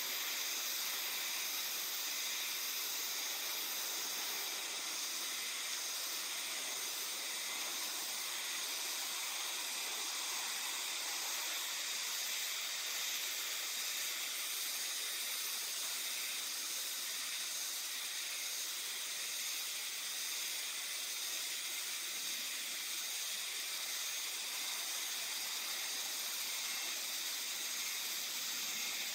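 Chorus of himeharuzemi cicadas (Euterpnosia chibensis) singing together, a steady high-pitched buzzing drone that holds unbroken throughout.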